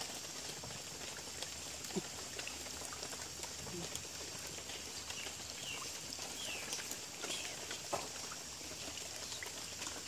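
Riverbank ambience: a steady high hiss with short falling chirping calls several times, and small scattered clicks as a hooked catfish is handled in wet mud.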